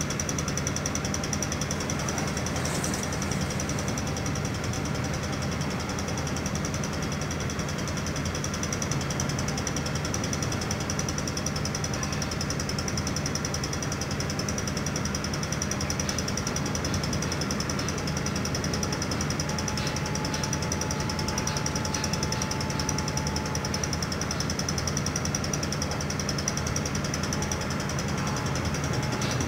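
Mobile crane's diesel engine running steadily at an even speed as it lifts rail panels, with a steady high-pitched whine above the engine note.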